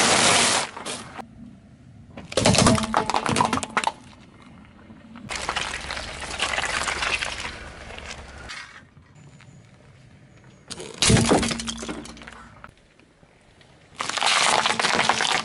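Car tyre rolling over and crushing things laid on the road, cheese puffs and green peppers among them: a run of separate crunching, cracking bursts, five in all, a few seconds apart.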